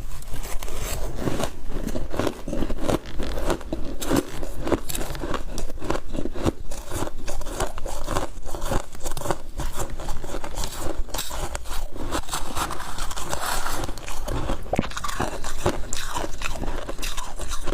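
Close-miked biting and chewing of soft freezer frost: dense, irregular crunching that goes on without a break.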